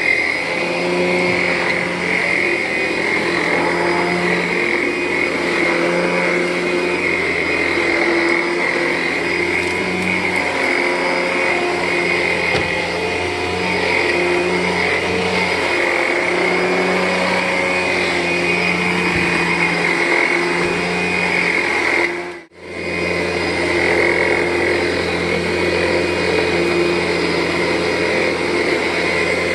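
Vacuum cleaner running steadily with a motor whine, its pitch wavering slightly as it is pushed back and forth over carpet. The sound drops out for an instant about three-quarters of the way through, then carries on.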